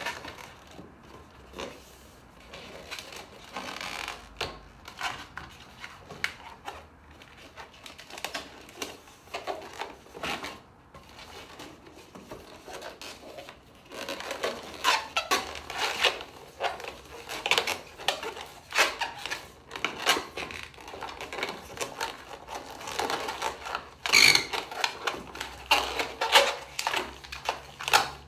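Inflated latex twisting balloon being bent and squeezed by hand into a heart shape: irregular rubbery squeaks and rubbing, sparse at first and much busier about halfway through.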